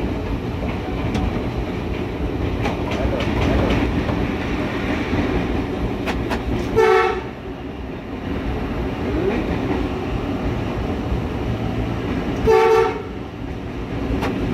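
Diesel locomotive running, heard from inside its cab, with a steady rumble. The locomotive's horn sounds two short blasts, the first about halfway through and the second near the end.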